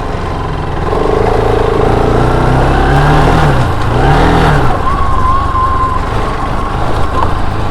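Bajaj Pulsar RS200's single-cylinder engine running as the motorcycle is ridden, its revs rising and falling about halfway through, over a steady rushing noise.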